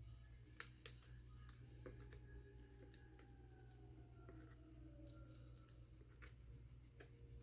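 Near silence with faint scattered clicks and scrapes from a thin pry card working under a MacBook battery cell held down by strong double-sided tape. A faint tone slides slowly downward in the middle.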